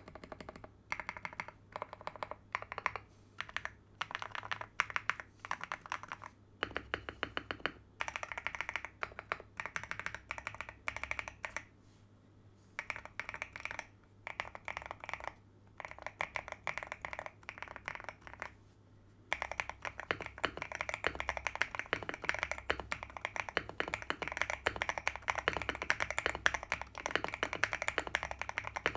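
Typing on a mechanical keyboard fitted with CIY Sakura switches: quick runs of keystrokes broken by short pauses, then steady fast typing through the second half.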